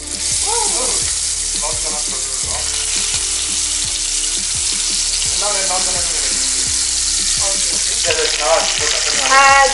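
Marinated climbing perch (koi fish) shallow-frying in very hot mustard oil: a loud sizzle that starts suddenly as the first fish goes into the pan and holds steady as more pieces are laid in.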